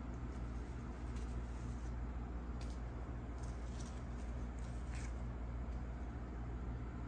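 Light scratches and taps of paper cutouts being handled and set down on a tabletop, a few scattered soft ticks over a steady low hum.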